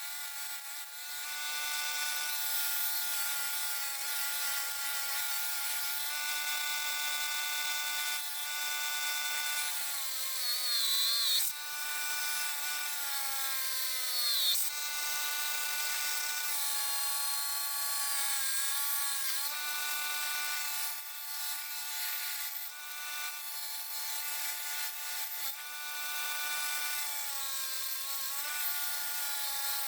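Electric power tool motor running with a steady whine, its pitch dipping and recovering twice as the tool is loaded against the work, likely grinding or stripping paint off the steel axe head.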